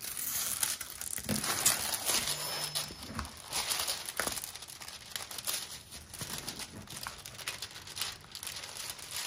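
Crinkling and rustling plastic in irregular bursts, from a diamond painting canvas and its clear protective film being handled and moved into place.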